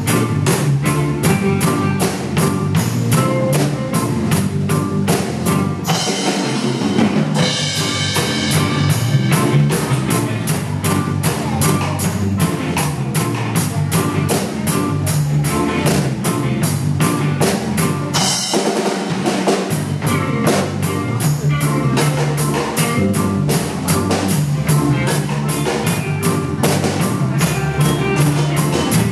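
Sonor drum kit played in a steady groove over a backing track with a bass line. The bass drops out briefly about six seconds in and again about eighteen seconds in.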